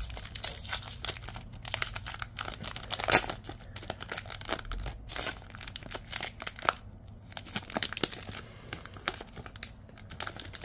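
Foil-lined trading card pack wrapper crinkling and tearing as hands work it open, in irregular crackles with a sharper tear about three seconds in. The pack is hard to get into and takes repeated tugs.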